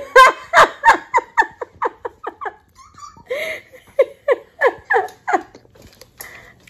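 A woman laughing hard in rapid, short, falling 'ha' bursts, about five a second, in two runs with a brief break about three seconds in.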